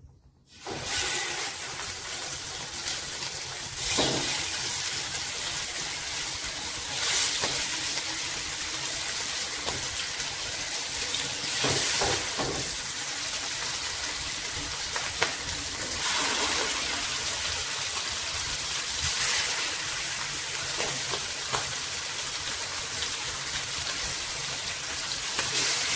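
Marinated chicken pieces sizzling in hot coconut oil in a frying pan, starting suddenly about half a second in as the first piece goes in. The sizzle flares up briefly every few seconds as each new piece is laid into the oil.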